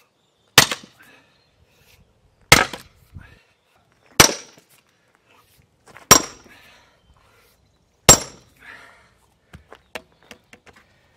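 A steel splitting wedge is hammered into a log round: five heavy blows about two seconds apart, each a sharp metallic clank with a short high ring. A few faint ticks follow near the end.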